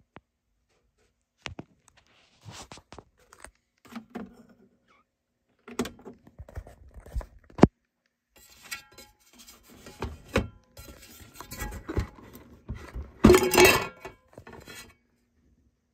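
Clicks, knocks and metallic clatter as a Pioneer PL-600 turntable is handled and its aluminium platter lifted off. The loudest clatter comes about 13 seconds in.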